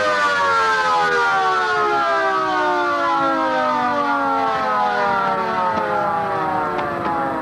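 Warning siren winding down, one tone with its overtones sliding slowly and steadily lower in pitch: the warning sounded before a tower-block demolition blast.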